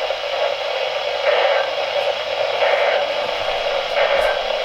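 NOAA weather radio receiver playing static: a steady hiss, with no clear voice coming through.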